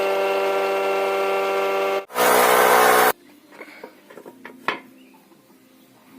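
Electric woodworking power tool running steadily. About two seconds in it cuts into wood with a louder, rougher sound for about a second, then stops abruptly. A few light knocks and a sharp click follow.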